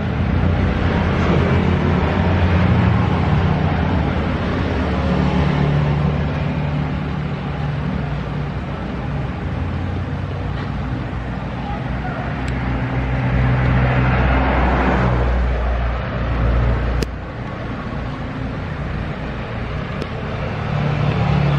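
Road traffic close by: motor vehicle engines running and passing in a continuous rumble, swelling about two-thirds of the way through, then dropping suddenly in level a few seconds later.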